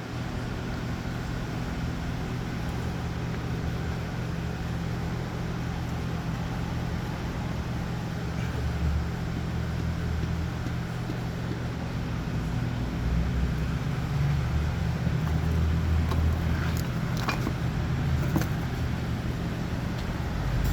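Machinery running with a steady low hum, a little louder in the second half, with a few sharp clicks near the end.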